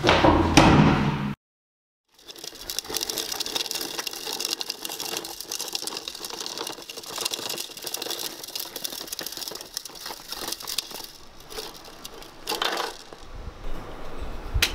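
A brief loud noise cuts off abruptly. Then the hard plastic wheels of a small child's ride-on toy rattle steadily over brick paving as it is ridden, thinning out near the end.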